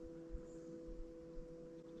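Faint steady two-tone hum with a few light ticks.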